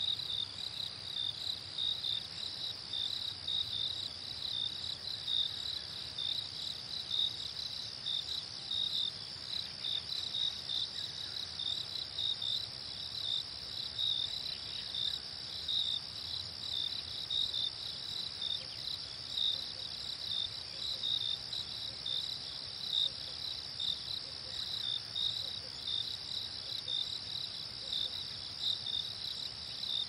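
Crickets chirping in a steady chorus: a continuous high trill with evenly repeating chirps pulsing over it.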